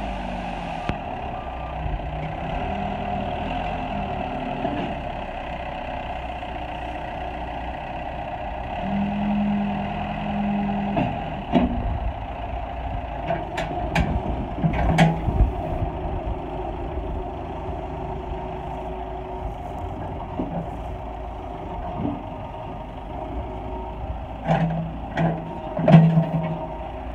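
Backhoe running steadily with a continuous engine and hydraulic hum, broken by sharp metallic knocks in two clusters, about halfway through and near the end.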